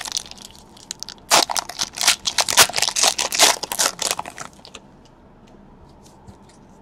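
Shiny foil wrapper of a trading-card pack being torn open and crumpled by hand. A dense stretch of crinkling and tearing runs from about a second in to about five seconds in.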